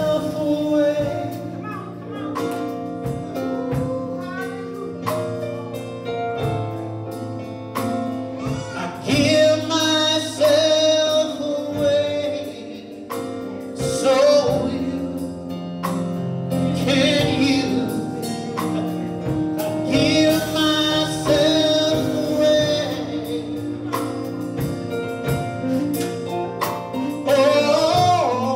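Gospel song: voices singing over instrumental accompaniment with held chords.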